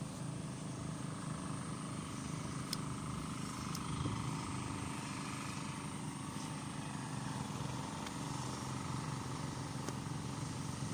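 Small diesel engine of a turtle tiller (paddy hand tractor) running steadily, an even low drone.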